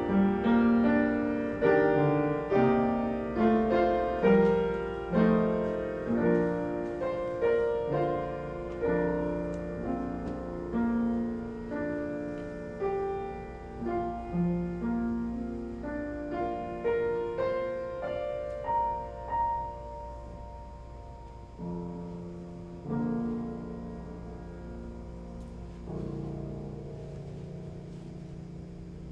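Piano playing a slow, classical-style piece that winds down to its close, the notes growing sparser and softer and ending on a held chord.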